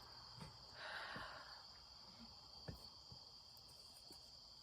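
Faint, steady high-pitched trill of insects such as crickets, with a brief soft rush of noise about a second in.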